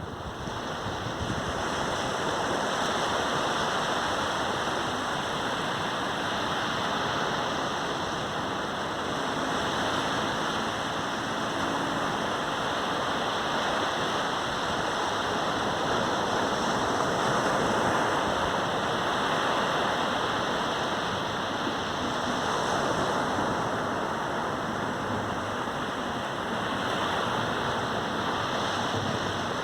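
Caribbean surf on a sandy beach: a continuous wash of breaking waves that slowly swells and eases.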